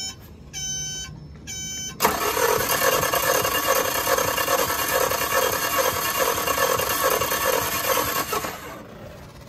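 Two short electronic beeps as the key is switched on, then the Yamaha 150 four-stroke outboard turning over on its electric starter for about seven seconds without firing: spark plugs out and throttle wide open for a compression test on the third cylinder. The cranking stops abruptly near the end.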